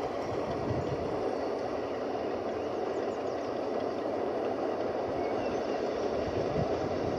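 Narrow-gauge steam train heard at a distance, hauled by a double Fairlie steam locomotive: a steady rumble of the engine and carriages running along the line.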